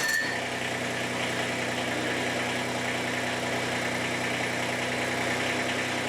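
Kubota BX25 tractor's three-cylinder diesel engine idling steadily, having caught right away on the starter with the throttle left down; the brief starter whine stops just after the start. The quick start shows the hard-starting, extended-crank problem cured by a new fuel shut-off solenoid.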